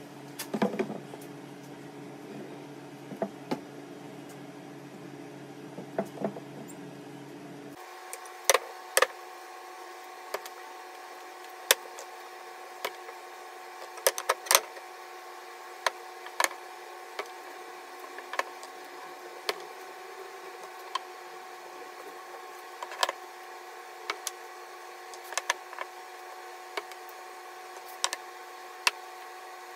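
Scattered sharp clacks and knocks of wooden boards and steel pipe clamps being handled and set down on a workbench, over a steady machine hum whose pitch changes abruptly about eight seconds in.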